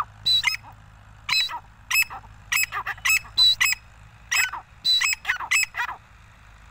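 Grey francolin calling: a quick run of short, sharp, high notes, several a second and grouped in bunches, that stops shortly before the end.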